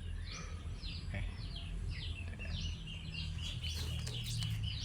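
Small birds chirping over and over in short, quickly falling notes, growing busier near the end, over a steady low rumble.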